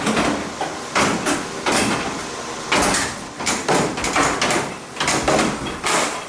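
Hand work on a car's sheet-metal body: a run of irregular metal clatters and scrapes.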